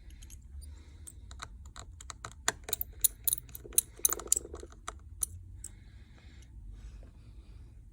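Irregular light clicks and ticks of small repair tools and tiny screws against an iPhone XR's metal frame and logic board as the board's screws are taken out, densest in a quick run in the middle.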